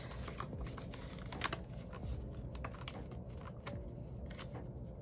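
Paper cash and budget envelopes being handled: a run of light, irregular clicks and rustles as bills are counted and moved between envelopes.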